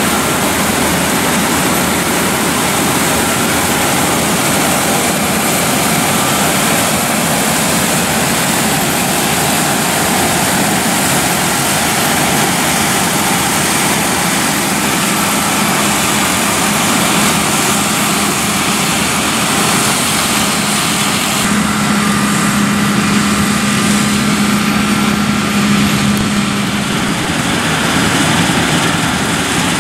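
Claas Lexion 7500 Terra Trac combine harvester running under load while threshing soybeans: a steady dense mix of engine and threshing machinery noise. A low steady hum comes in a little past the middle for several seconds.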